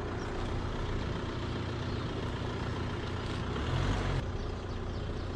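Land Rover Discovery Sport's engine idling steadily, heard from outside the open driver's window.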